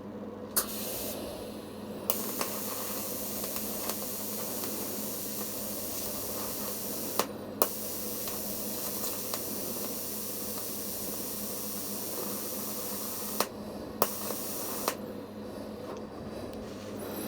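Electric welding arc hissing steadily on a thin-walled copper tube with copper-phosphorus filler rod, the current turned down to about 30 A because 45 A was burning through the tube. The arc runs three times, each run starting with a sharp click: about two seconds in, again about eight seconds in, and briefly near fourteen seconds.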